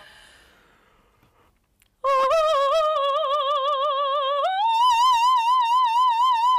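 Operatic soprano singing unaccompanied. After about two seconds of quiet she holds a note with a wide vibrato, then a couple of seconds later slides up an octave to a high note, also held with vibrato.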